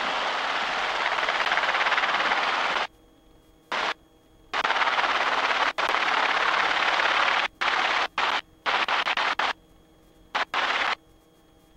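Robinson R22 helicopter hovering: a steady rush of rotor and engine noise that cuts out suddenly to a faint hum and comes back several times from about three seconds in.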